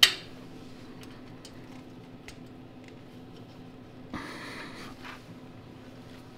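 Small metal engine parts clicking and scraping as a carburetor mounting nut is fitted by hand, by feel: one sharp click at the start, a few faint ticks, and a short scrape about four seconds in, over a steady low hum.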